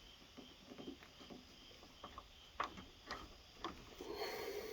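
Faint, scattered light clicks and taps of hand work on a rubber window gasket and a blunt screwdriver, a few sharp ticks in the second half.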